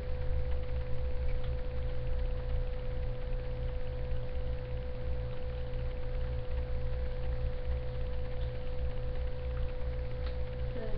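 Steady low electrical hum with a constant, unwavering tone near 500 Hz running over it; no speech.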